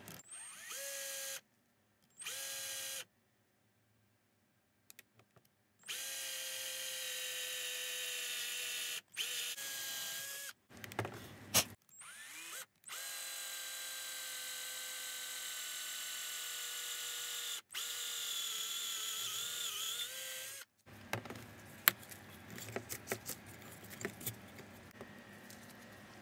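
Handheld electric drill running with a steady motor whine as a twist bit bores holes through a metal bar: two short trigger pulls, then several longer runs of a few seconds each, the pitch wavering near the end of the last one. Afterwards a scatter of light clicks and rattles as the part is handled.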